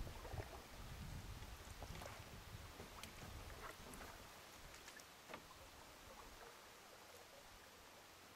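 Faint sounds of canoe paddling on calm water: a low rumble that fades out about six and a half seconds in, with scattered light knocks and ticks.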